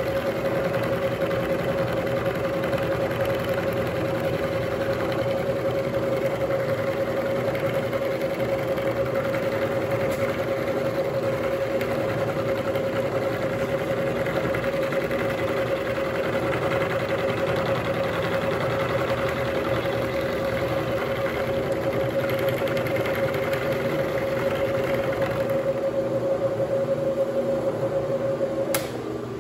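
Bridgeport vertical milling machine running steadily while it mills down the side of a hex nut, with a strong steady motor-and-spindle whine. Just before the end the spindle winds down.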